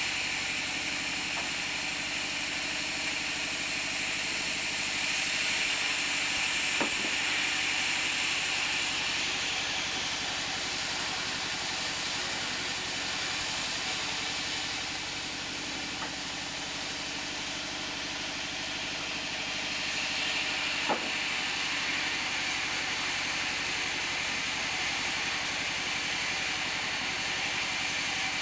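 Band sawmill running steadily while cutting mango wood, a constant hiss over a low machine hum, with two sharp knocks, one about a quarter of the way in and one about three quarters in.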